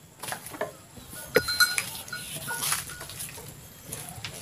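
White cow moving about in its pen: scattered knocks and short metallic clinks as it steps and shifts.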